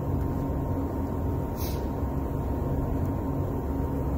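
Steady low machine hum with a faint high tone in it. A short scratchy sound comes about one and a half seconds in as a wire pin is worked into a plastic harness connector.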